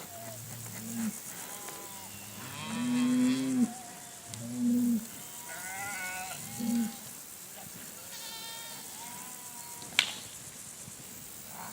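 Cattle mooing: four low calls, each under about a second long, spread over the first seven seconds, then a single sharp click about ten seconds in.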